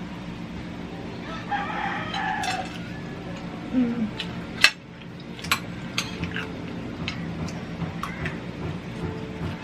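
A rooster crowing, one long call about a second and a half in, followed by a series of sharp clicks and knocks, the loudest nearly five seconds in, over a steady low hum.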